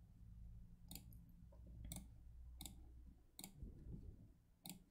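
Faint computer mouse clicks, about five, spaced irregularly, over a faint low hum that stops about three seconds in.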